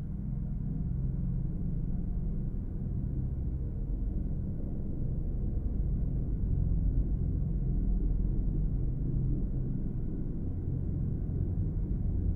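Deep ambient drone: sustained low tones and rumble with almost nothing in the upper range, slowly growing louder over the first several seconds.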